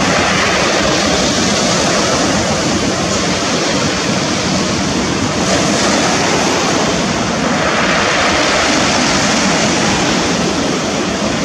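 Ocean surf breaking and washing over shoreline lava rocks: a steady, loud rush of waves, swelling a little past the middle.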